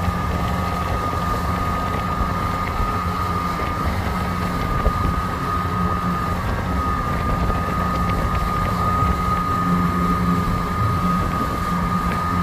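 A boat's motor running steadily under way, with a constant high whine over a low hum and the rush of wind and water.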